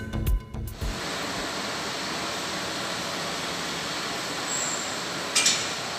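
Background music ends about a second in, followed by a steady, even hiss of ambient noise with a short click near the end.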